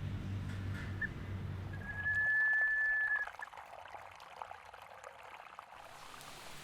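A low rumble that cuts off suddenly, a short high tone, then one steady high tone held about a second and a half; after it, faint scattered drips of water.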